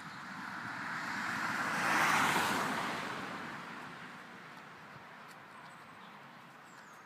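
A car passing by on a road: its tyre and engine noise rises to a peak about two seconds in, then fades away.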